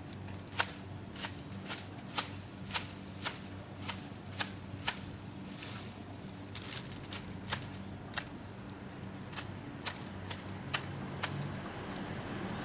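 Pruning shears snipping through the tree's twigs and leaves: a run of sharp, irregular snips, about one or two a second.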